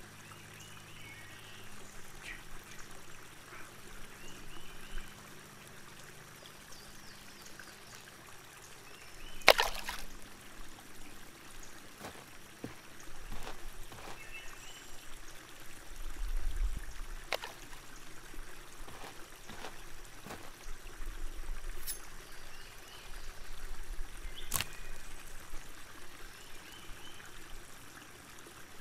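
Shallow creek water trickling over stones in a wooded ravine, with faint chirps and a few sharp snaps or clicks scattered through it, the loudest about a third of the way in.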